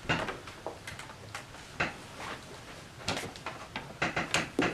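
Handling noises indoors: a scattered series of short clicks and knocks, most frequent near the end.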